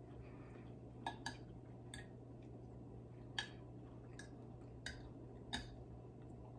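Cutlery clinking against a plate in about seven light, scattered clicks while eating, over a low steady hum.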